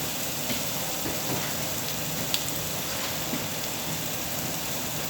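Meat sizzling on a tabletop Korean barbecue grill: a steady crackling hiss with scattered small pops, one sharper pop about two and a half seconds in.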